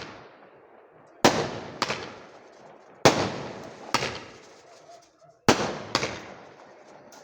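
Firecrackers exploding one after another: six sharp bangs, roughly in pairs, each followed by a fading echo.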